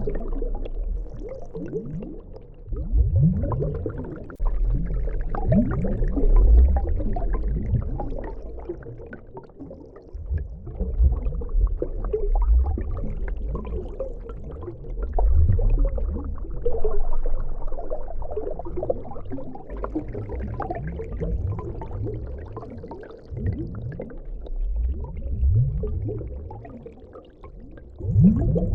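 Underwater water sound effect: low bubbling and gurgling with short rising bubble blips, swelling and fading irregularly.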